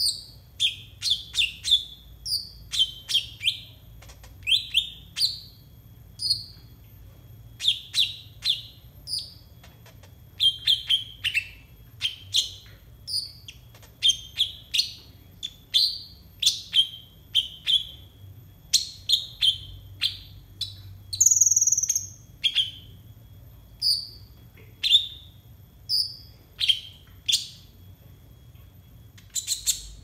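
A caged male sunbird (konin) singing: quick runs of short, sharp chirps, many sliding downward, with a brief higher squeaky burst a little past two-thirds of the way in.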